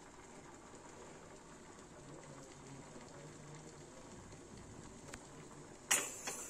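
Stovetop pressure cooker building pressure on a gas burner, with a faint steady bubbling hiss from inside. Near the end a sudden loud burst of escaping steam starts as the weight begins to lift for its whistle.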